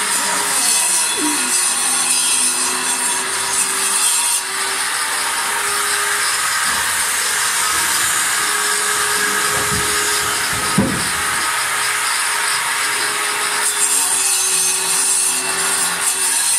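Handheld electric power tool running steadily and working against a wooden board, with a motor hum that fades out and returns midway. A single sharp knock about eleven seconds in.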